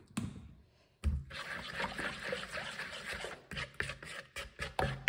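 A plastic spoon stirring and scraping a wet, gritty dressing of fish sauce and toasted rice powder around a plastic mixing bowl, a steady swishing and rubbing that starts about a second in.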